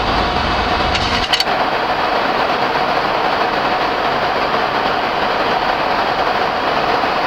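Steady rushing cockpit noise of a Boeing 737 MAX on final approach with gear down and flaps extended. A couple of brief clicks about a second in, after which the low rumble falls away.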